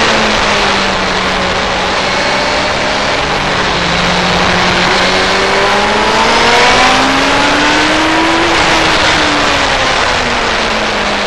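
Middleweight sport motorcycle engine running hard on a race track under a constant rushing noise; the engine note climbs steadily for several seconds past the middle, then drops back.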